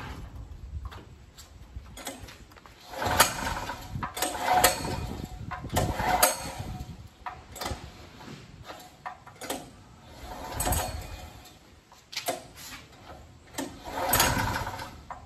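Recoil starter of a Pretul portable gasoline generator pulled about five times, each pull a short rasping crank of the engine, which does not catch.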